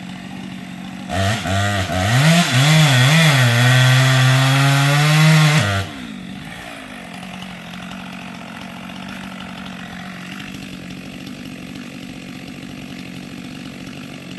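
Two-stroke chainsaw idling, revved hard about a second in with the revs wavering, then held at high revs for about three seconds before it drops back to idle just under six seconds in.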